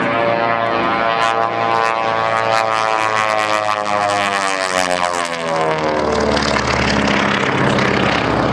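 Twin Beech 18's two radial engines and propellers running at high power in a low pass, the pitch dropping about four to six seconds in as the plane goes by, followed by a deeper rumble.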